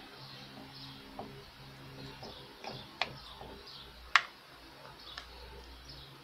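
Chicken pieces cooking in a pan of foaming, bubbling liquid, with scattered sharp pops and clicks, the loudest about four seconds in, over a low steady hum.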